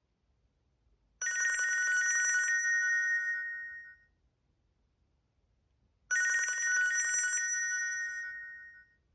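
A Nokia E72 stock tone with a bell-like ring. It sounds twice, about five seconds apart: each time a buzzy ring of about a second, then two clear high tones that fade out.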